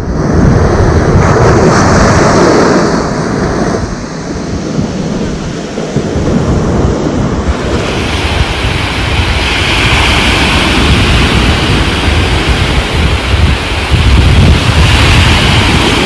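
Ocean waves breaking and washing up a sandy beach, with wind buffeting the microphone as a low rumble. About halfway through, the surf becomes a brighter, hissier wash of foam.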